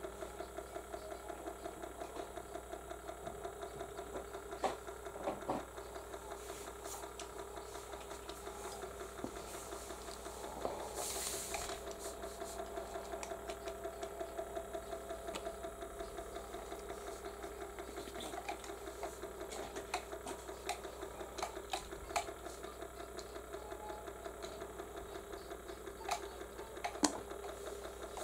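Small electric motor of a rotating display turntable running, a steady hum with a fast, regular ticking pulse. A few scattered clicks, and a brief hiss near the middle.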